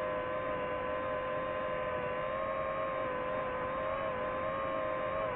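DJI FPV quadcopter's motors and propellers running with a steady whine, several close pitches wavering slightly together.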